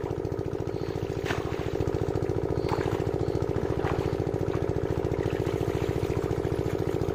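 A small engine running steadily with an even, fast pulse, along with a few brief splashes of water about one, three and four seconds in.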